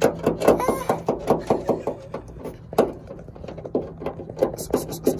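Socket wrench ratcheting on a tail-light mounting nut under the trunk lid, clicking in quick regular strokes, about four or five a second.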